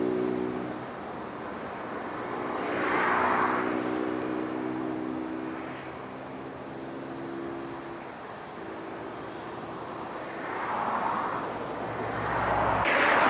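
Helibras AS350 B2 Esquilo helicopter with its single turboshaft engine, running in flight: a steady pitched drone with a rushing sound that swells and fades three times, loudest near the end.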